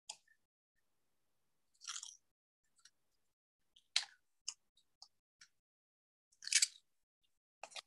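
Faint crinkles, rustles and ticks of cardstock and adhesive-strip liner handled between the fingers. There are two short rustles, about two seconds in and again near the end, with single light ticks between them.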